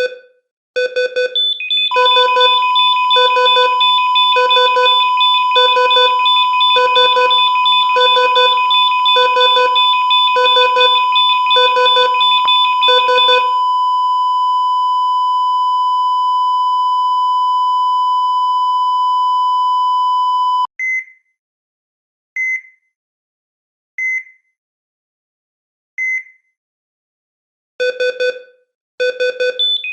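ECG heart-monitor sound effect: fast repeated beeps, about one and a half a second, over a steady alarm tone. The beeps stop about 13 seconds in and the monitor holds a single continuous flatline tone, the sign of cardiac arrest. The tone cuts off suddenly near 21 seconds, single beeps follow about every two seconds, and fast beeping resumes near the end.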